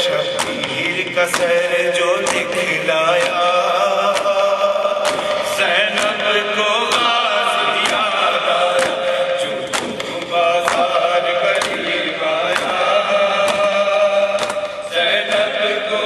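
A male reciter chants a noha, a Shia mourning lament sung in Urdu, into a microphone in one unbroken melodic line. Frequent sharp beats sound behind the voice.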